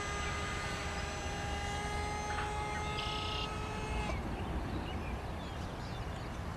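Radio-controlled He 162 model jet's motor whining steadily in flight, then cutting out abruptly about four seconds in as the model loses power.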